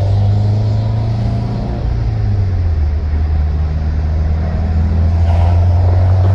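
Subaru WRX's flat-four engine and road noise heard from inside the cabin while driving, a steady low drone.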